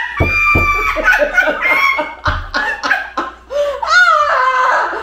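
Two women laughing hard, with three dull thumps in the first two and a half seconds.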